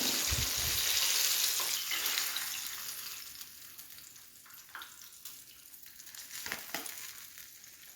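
Flour-coated chicken pieces sizzling as they deep-fry in hot oil in a pan; the sizzle fades away over the first few seconds, leaving a faint hiss with a few light clicks.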